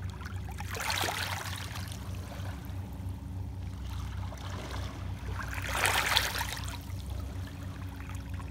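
Small waves lapping and washing over the stones at the water's edge, swelling louder about a second in and again about six seconds in. A steady low hum runs underneath.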